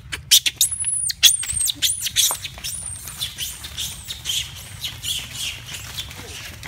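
Long-tailed macaques shrieking in a rapid run of short, sharp, high-pitched cries. Thin, very high squeals rise and fall over the first few seconds, then the calls grow fainter.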